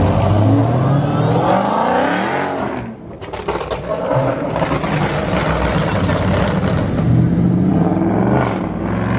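Car engine revving and accelerating, rising in pitch for a couple of seconds, dropping off abruptly about three seconds in, then running on.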